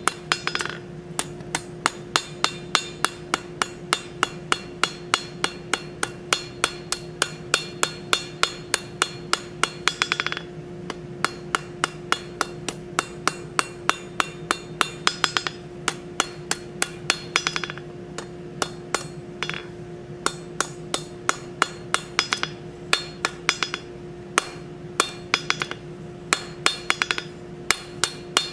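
Hand hammer striking a hot bar on an anvil in a steady rhythm, about three blows a second, each blow ringing, with a few brief pauses. The blows are drawing the bar out between two shouldered points.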